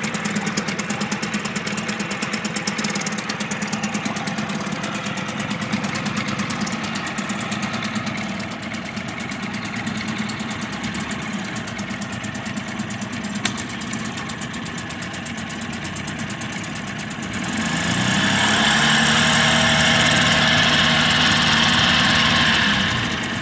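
1966 Mercury 39 two-stroke outboard idling steadily with its lower unit in a tub of water. About seventeen seconds in it revs up and its propeller churns the tub water for about five seconds, then it drops back to idle near the end.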